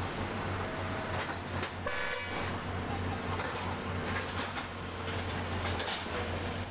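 Track renewal train's machinery running with a steady low drone. About two seconds in a horn toots briefly, and a few short knocks follow later.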